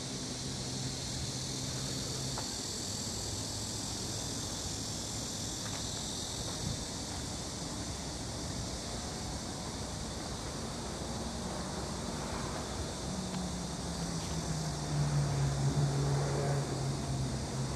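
Insects chirring in a steady, high, even drone. A low hum comes in and grows louder about three-quarters of the way through, then eases near the end.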